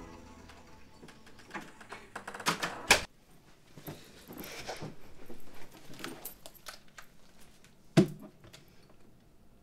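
A run of small clicks and knocks, like things being handled, with two louder sharp knocks about three and eight seconds in.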